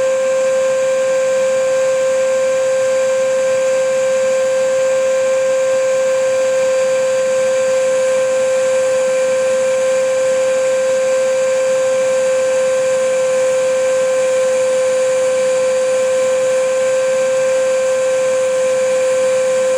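Vacuum cleaner running steadily: a constant motor whine over an even rushing hiss, with no change in pitch or level.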